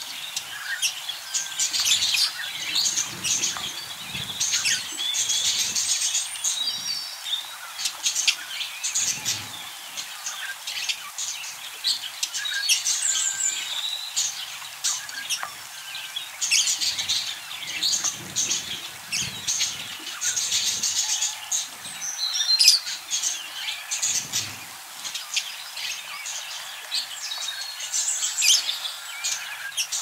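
A group of budgerigars chattering continuously, a dense warbling mix of short chirps and squeaks, with occasional wing flutters.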